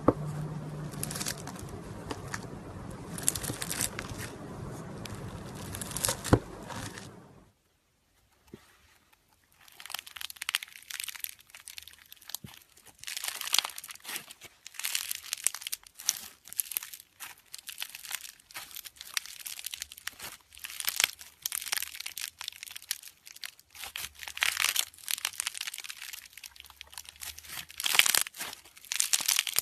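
Slime being squeezed and worked by hand, giving irregular crackling, sticky pops. A brief silence about seven seconds in separates an earlier, hissier stretch from the later, denser crackling.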